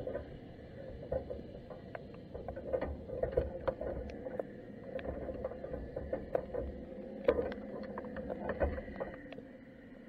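Underwater ambience picked up by a camera sitting inside a submerged crab pot: a muffled low rumble with many irregular clicks and ticks.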